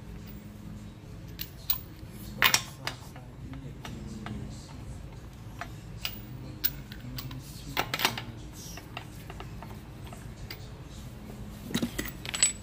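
Lug nuts being threaded by hand onto a car wheel's studs: scattered metal clicks and clinks, the loudest about two and a half seconds in, around eight seconds, and near the end, over a steady low hum.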